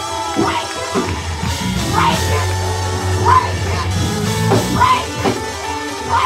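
Church band keyboard holding sustained chords with drums, under a preacher's short shouted phrases through the microphone, one about every second and a half.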